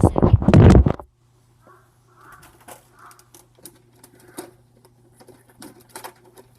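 Loud rustling and clattering, as of the recording device or gear being handled, for about a second, cutting off sharply. After that it is quiet, with a low steady hum and a few faint clicks.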